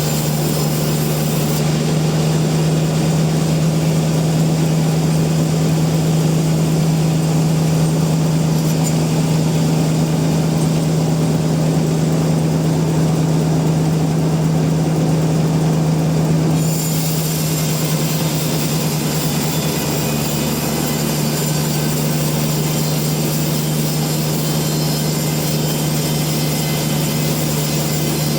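Sawmill machinery running with a steady low hum. About two-thirds of the way through, the sound shifts: a high hiss comes in and it gets slightly quieter.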